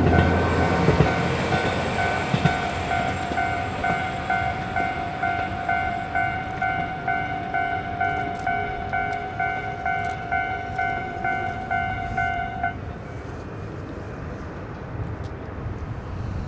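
Railway level crossing warning bell ringing at a steady rate of about two strokes a second, then stopping about three quarters of the way through, over a low rumble.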